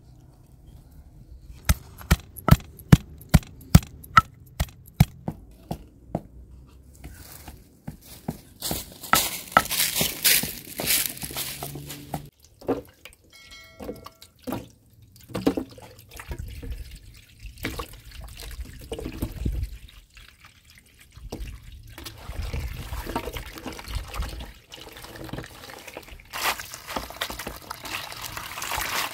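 Water from a garden hose running and splashing into a large metal basin while lemons, onions and fresh herbs are washed in it by hand. In the first few seconds, a quick run of sharp clicks comes before the water.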